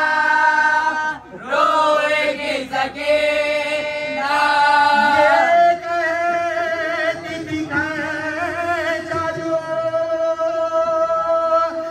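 A male voice singing a noha, a Shia mourning lament, in long held notes that waver and glide in pitch, with short breaks between phrases.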